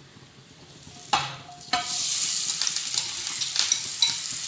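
Two sharp knocks, then a ground chicken and onion masala mix hits hot oil in a pan and starts sizzling steadily about two seconds in.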